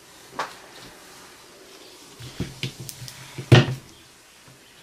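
Knocks and clicks of a soap loaf being handled in a plastic-and-wood wire soap cutter as a thin end sliver is trimmed off: one click near the start, a run of knocks a little over two seconds in, and the loudest knock about three and a half seconds in.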